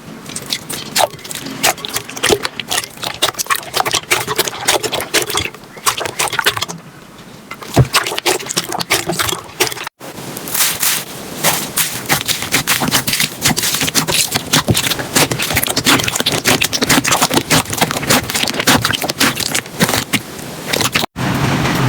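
Slime being squeezed, pressed and stretched by hand close to the microphone: a dense, loud run of clicks, pops and crackles. It breaks off abruptly about ten seconds in and again near the end as new clips begin.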